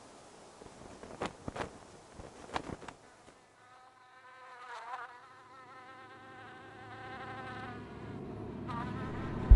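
A fly-like insect buzzing, starting about three seconds in and wavering in pitch as it passes. Before it come a few faint clicks and rustles, and near the end a low drone grows steadily louder.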